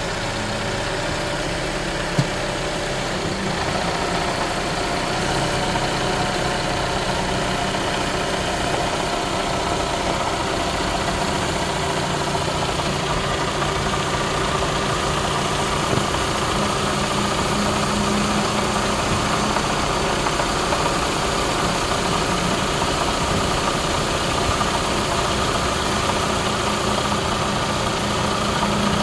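2017 Toyota Camry SE engine idling steadily with a rattle that new engine mounts and a new belt tensioner have not cured. There is one sharp click about two seconds in.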